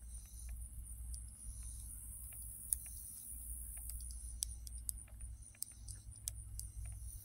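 Knitting needles clicking and tapping irregularly as stitches are worked, with one sharper click about two and a half seconds in, over a steady low rumble.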